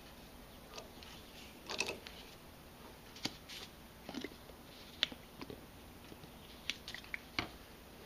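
Scattered faint metallic clicks and crunching scrapes from a 1/4-18 NPT pipe tap cutting threads into a port in a power steering gearbox housing, irregular and uneven, with the sharpest clicks about five and seven seconds in.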